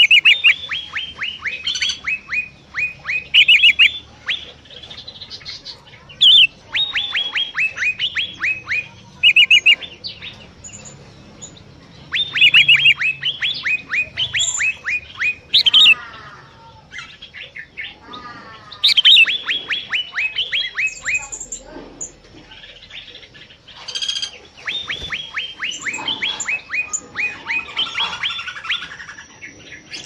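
Cucak mini singing in an aviary: repeated runs of quick, high, down-slurred notes, each run lasting one to three seconds, five runs in all. Other bird chirps and gliding calls come between the runs.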